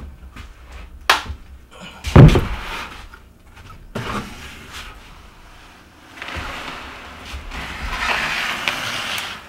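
A plastic bucket of hand-mixed concrete knocks down onto a wooden counter form with a heavy thump about two seconds in, with lighter knocks around it. From about six seconds in, thick wet concrete slides and scrapes out of the tipped bucket, a rough hiss that grows louder toward the end.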